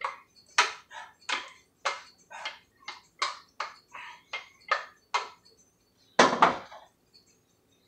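Metal spoon knocking and scraping against a stainless steel pot as mashed potato is scooped out, about two knocks a second. About six seconds in, a louder double clatter as the pot is set down on the stove grate.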